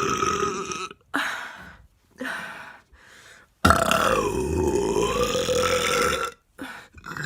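A woman burping repeatedly. A long burp ends about a second in, followed by two short ones. Then comes a long burp of about three seconds whose pitch dips in the middle and rises again, and a short burp near the end.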